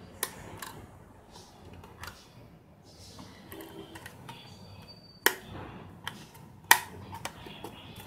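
Sharp plastic clicks and taps from fingers working the sliding SIM card tray in the back of a Hikvision AX Hub alarm control panel, with two loud clicks past the middle among lighter ticks and handling rustle.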